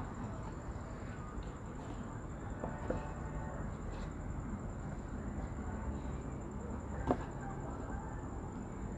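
Electric table fan running with a steady low whir, with a few light knocks about three and four seconds in and a sharper one near seven seconds.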